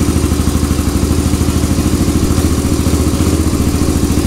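Honda ATC 350X's single-cylinder four-stroke engine idling steadily with an even, rapid beat, running on a newly fitted reconditioned Keihin carburetor.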